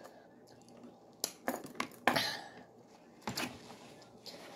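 Skittles clicking and clattering against each other and a plastic container as they are picked through by hand: a handful of short, sharp clicks, the loudest about two seconds in.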